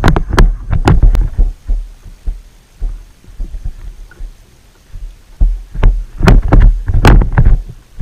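Irregular dull thumps and sharp knocks on a fishing kayak and its mounted camera while a fish is reeled in, clustered in the first second and again between about five and a half and seven and a half seconds in.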